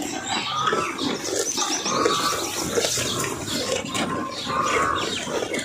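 Cattle tearing and chewing a pile of freshly cut grass: a steady crunching and rustling, with short high calls every second or so.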